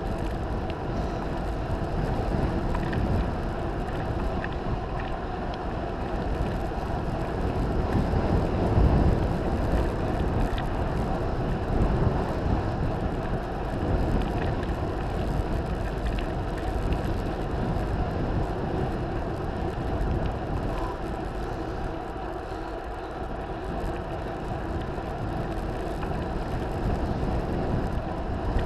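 Wind buffeting an action camera's microphone on a mountain bike during a fast road descent, over the hum of knobby tyres rolling on rough asphalt; the rush swells a little now and then.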